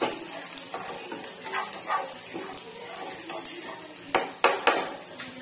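Minced garlic and onion sizzling in oil in a nonstick frying pan while a spatula stirs and scrapes them. About four seconds in, three sharp knocks of the spatula against the pan are the loudest sounds.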